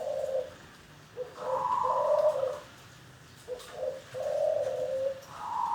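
Zebra dove (perkutut) cooing its song: repeated phrases of a few short clipped notes leading into longer drawn-out coos, a new phrase about every two seconds.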